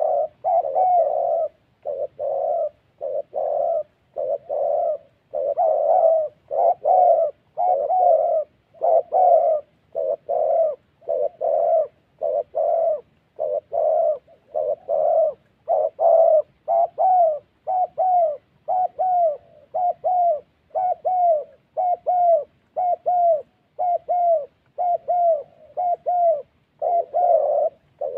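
Spotted doves giving rapid repeated coos, about one and a half a second, in an unbroken run. This is the dove trappers' 'thổ' call, made around a decoy in a ground trap.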